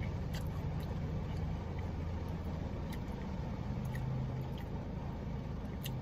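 Steady low hum of a car idling with its air conditioning running, heard inside the cabin, with scattered light ticks.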